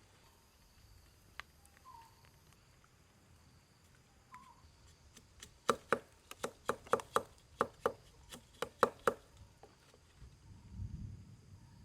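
Blade chopping: about a dozen sharp strikes in quick succession, roughly four a second, starting about halfway in and lasting some three and a half seconds.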